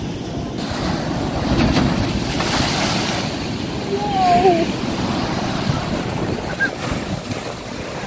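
Rough sea surf breaking and washing against a rock breakwater, with wind buffeting the microphone. A louder wave crash comes about two and a half seconds in.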